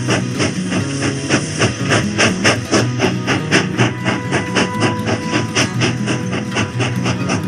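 Background music with a fast, steady beat over a moving bass line.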